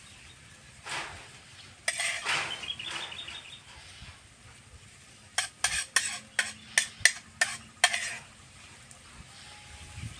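Metal fork clicking and scraping against a plate and shellfish shells, with a quick run of sharp taps between about five and eight seconds in.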